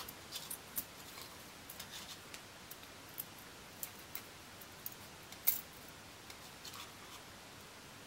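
Bare copper wire strands clicking and scraping against each other as they are pulled apart by hand, in scattered light ticks, with one sharper click about five and a half seconds in.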